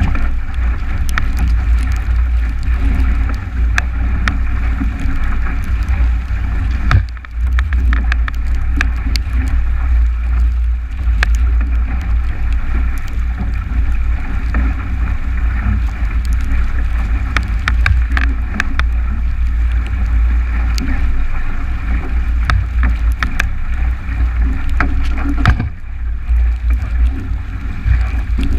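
Wind buffeting the camera microphone in a heavy rumble over the rush of water along the hull of a 29er skiff planing fast in strong wind. Spray ticks on the camera housing again and again.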